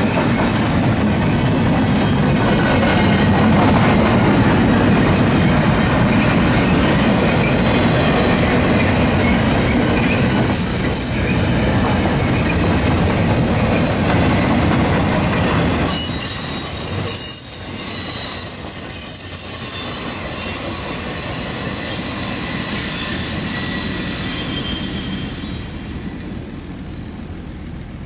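Empty intermodal well cars of a freight train rolling past, a loud steady rumble of steel wheels on rail. High-pitched wheel squeal joins from about ten seconds in, and the sound fades near the end as the last cars move away.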